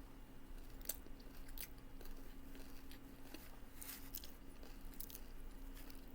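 A person chewing a mouthful of taco salad with crunchy Doritos chips, with several sharp crunches at irregular intervals between softer chewing.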